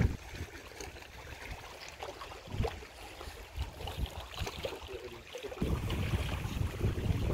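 Wind buffeting the microphone at the water's edge, with small waves lapping against shoreline rocks. The wind rumble grows louder about three-quarters of the way through.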